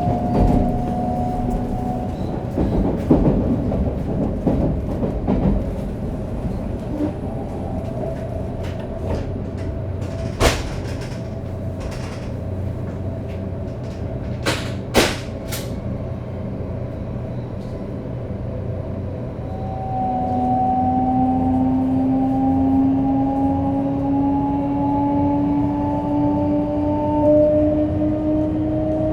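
A 500 series Shinkansen running, its Toshiba GTO-VVVF inverter and traction motors giving pitched whines over the running noise. A few sharp clicks come at about 10 and 15 seconds. About two-thirds of the way through the sound gets louder and two whine tones begin slowly rising as the train powers up.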